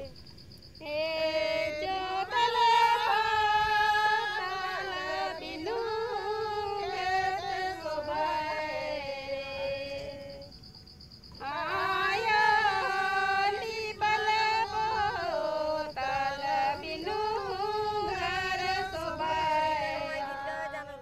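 A woman singing in two long phrases with sliding pitch, breaking off for about a second near the middle.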